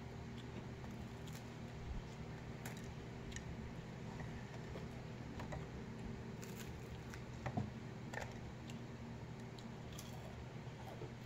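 Quiet eating sounds: scattered light clicks and knocks of a spoon against dishes over a steady low hum, with one louder knock about seven and a half seconds in.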